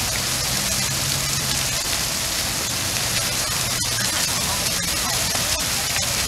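Steady hiss of falling water and spray, with a faint low hum underneath.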